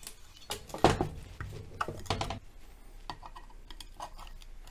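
A screwdriver clinking and knocking against the lower-unit gearcase of a 1973 Evinrude 18 hp outboard as the drain and vent plugs are worked out. A cluster of metal knocks comes in the first couple of seconds, the loudest about a second in, then lighter clicks.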